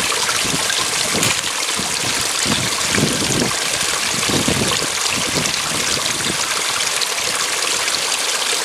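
Running water flowing and trickling steadily, a continuous rushing hiss with no break, with some soft low rumbles through the first half.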